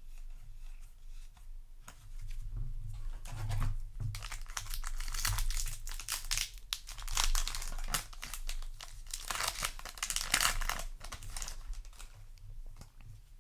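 Foil trading-card booster pack wrapper crinkling and tearing in irregular bursts, loudest in the middle.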